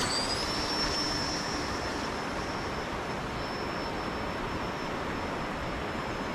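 The small electric motor and propeller of a radio-controlled model airplane, whining in flight at a high pitch that rises slightly at first and then holds steady, over a steady rushing hiss.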